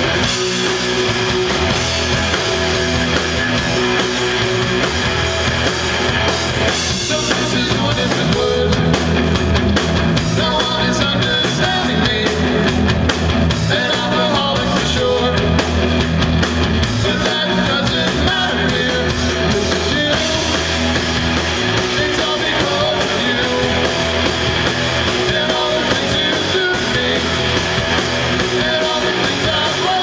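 Live rock band playing: several electric guitars, one of them a hollow-body, over bass and a drum kit, loud and continuous.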